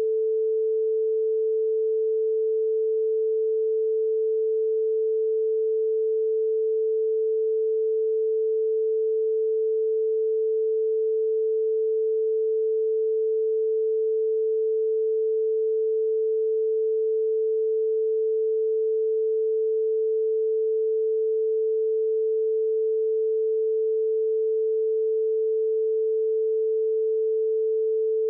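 A single steady pure tone at one pitch and constant loudness, with no speech: a censor tone laid over a redacted stretch of the interrogation recording.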